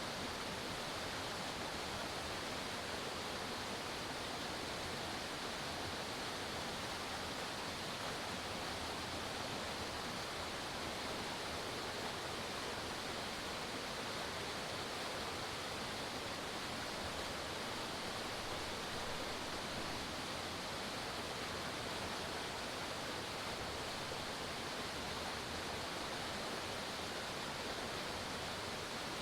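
Forest waterfall: water falling and splashing in a steady, unchanging rush.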